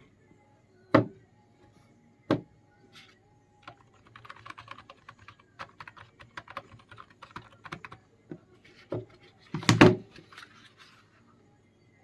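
Typing on a Perixx Periboard split ergonomic keyboard with quiet, soft-feedback keys: a run of light key clicks from about four seconds in. Two louder knocks come near the start, and a louder burst of clicks comes about ten seconds in.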